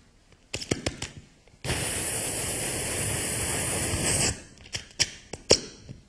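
Mouth-made sound effects through a microphone: a few sharp clicks, then a hissing rush of about two and a half seconds that starts and stops abruptly, then a few more sharp pops.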